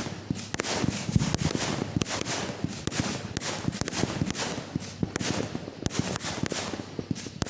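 Fireworks going off: a dense, irregular run of sharp pops and crackles, with a low boom about a second in.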